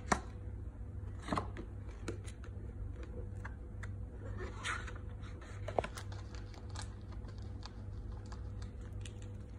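Paperback book being handled and its pages turned: scattered light taps, flicks and paper rustles, over a steady low hum.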